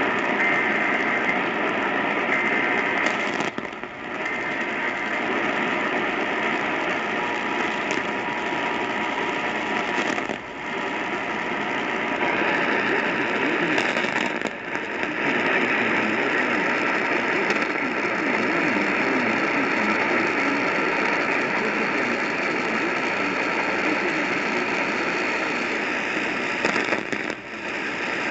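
Static-filled radio reception of an Emergency Alert System required monthly test: a steady wash of hiss and noise with faint steady tones in it, briefly dipping four times.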